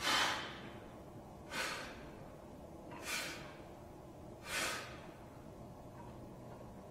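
A man breathing out sharply with each rep of bent-over dumbbell lateral raises: four forceful hissing exhalations about a second and a half apart, the first the loudest.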